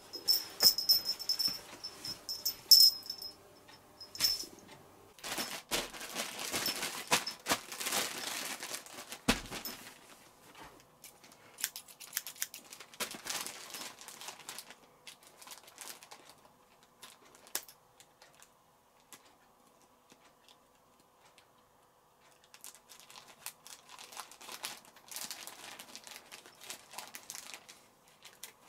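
A plastic mailer bag crinkling and rustling in bursts as it is handled and then cut open with scissors, with a quiet gap in the middle. Over the cloth handling in the first few seconds a high thin whine is heard, stopping about four seconds in.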